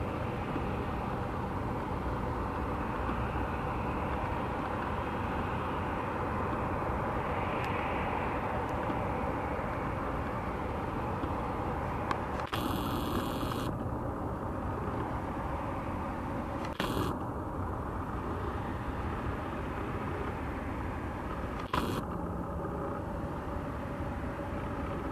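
Airbus A321's jet engines heard as the airliner rolls out along the runway after touchdown: a steady rumble with a held tone, swelling a little before easing off about halfway through. A few short crackles cut in during the second half.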